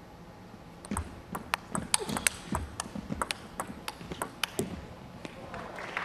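Table tennis rally: the ball clicks sharply off the rackets and table in quick succession, about a dozen and a half hits over nearly four seconds. Applause starts up near the end once the point is won.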